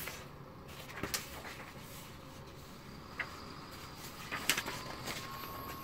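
Faint scattered clicks and light handling sounds over a low background hiss, from a textbook's pages being turned and the recording phone being moved.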